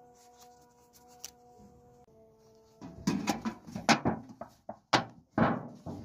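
Faint background music with held notes, then from about three seconds in a run of sharp knocks and rattles from a thin sheet-metal oil tin being handled while a plastic tap is fitted into a hole in its side.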